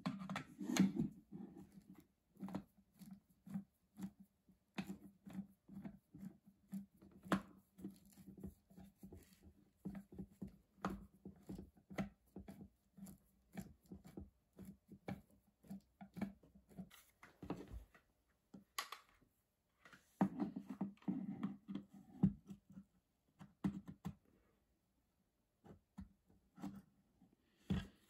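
Screwdriver working the screws out of a Stanley hot glue gun's plastic housing, with the gun handled on a workbench: irregular small clicks, scrapes and light knocks.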